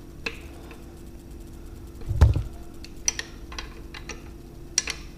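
Metal wrenches clicking against the shift rod coupling nut of an outboard lower unit as the nut is backed off: a scattering of short, light metallic clicks, with a dull thump about two seconds in.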